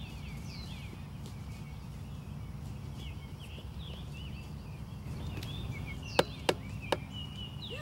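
Small songbirds chirping and calling over a low rumble. A little after six seconds in, three sharp clicks come in quick succession, louder than anything else.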